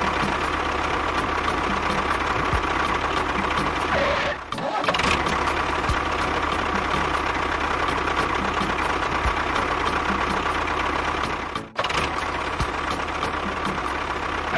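A small motor running steadily, with a faint fast ticking; the sound breaks off briefly twice, about four and a half and about twelve seconds in.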